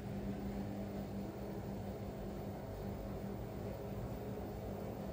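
Steady mechanical hum of a kitchen appliance's electric motor running, a constant low drone with a faint hiss over it.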